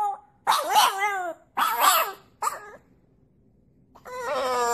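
A dog vocalising: three short, wavering yowls in quick succession, then after a pause a longer cry that starts near the end and falls in pitch.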